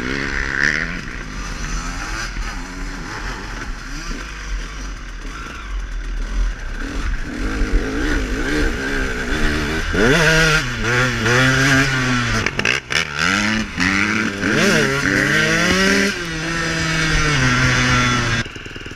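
KTM dirt bike engine under way, revving up and dropping back again and again as the rider accelerates and shifts, over a low rumble of wind on the microphone. The engine pulls hardest from about halfway through, and the sound cuts off suddenly near the end.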